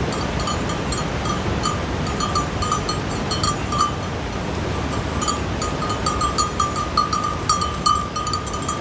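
Small bells on grazing goats clinking irregularly, the strikes coming faster in the second half, over a steady low rush of wind noise.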